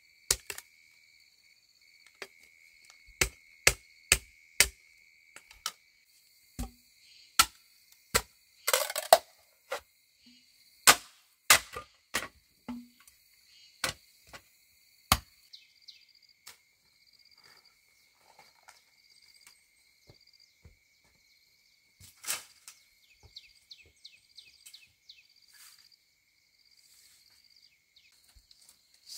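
Irregular sharp tool strikes on bamboo, about a dozen in the first half and a few more later, one followed by a brief crackle about nine seconds in. Insects trill steadily behind.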